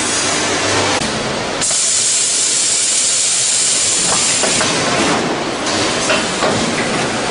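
Packing machine running, with a loud hiss of compressed air from its pneumatics starting about one and a half seconds in and lasting some three seconds, then a shorter hiss near the middle.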